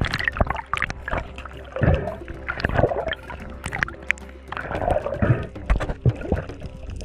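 Underwater gurgling and bubbling heard through a dive camera's waterproof housing, with frequent sharp clicks and knocks, as a freediver handles a speared surgeonfish on the spear shaft.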